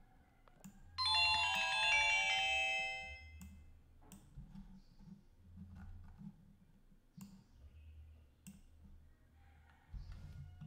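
A short electronic chime of several bell-like tones, starting suddenly about a second in and fading out over about two seconds, with scattered mouse clicks around it.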